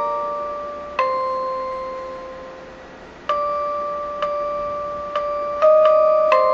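Background music of slow, sparse bell-like struck notes, one to two seconds apart, each ringing on and fading slowly.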